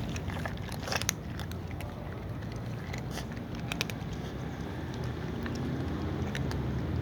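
Cats eating, their chewing heard as scattered sharp crunching clicks over a steady low rumble.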